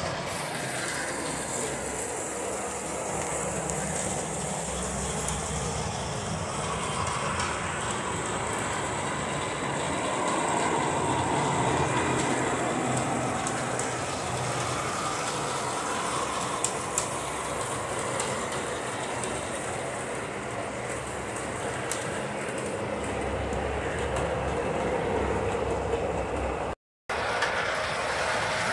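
Standard Gauge tinplate model of a Camelback steam locomotive running on three-rail track: a steady whir of its motor and gearing with the wheels rattling and clicking over the rails. The sound drops out for a moment near the end.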